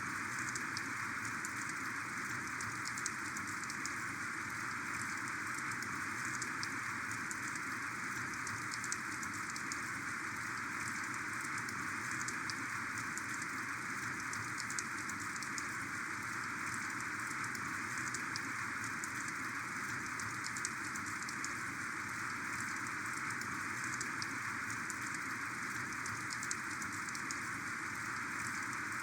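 Heavy rain falling steadily, a dense even hiss with many scattered sharp ticks of individual drops striking a surface.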